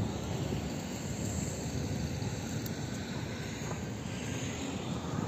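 Steady low outdoor background rumble with no distinct single event.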